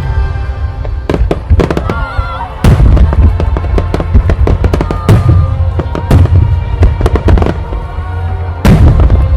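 Fireworks going off in quick succession: many sharp bangs and crackles over a deep, continuous rumble, with louder volleys about a third of the way in and again near the end.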